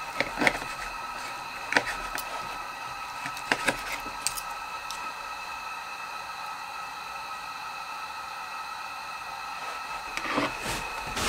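Knife and fork cutting cooked steak on a plate: sharp clicks and scrapes of the cutlery against the plate, several in the first few seconds and a short cluster near the end. A steady faint high hum runs underneath.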